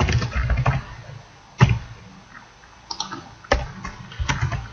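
Computer keyboard typing: a quick run of keystrokes at the start, then a single sharp click about a second and a half in and a few more scattered clicks near the end.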